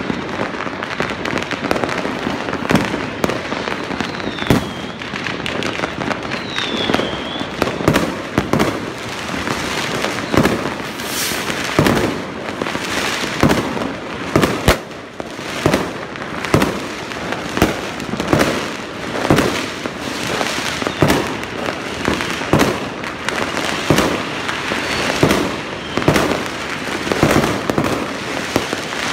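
Many fireworks going off at once: continuous crackling and popping with repeated sharp bangs, a loud one every second or two, and a few short falling whistles in the first several seconds.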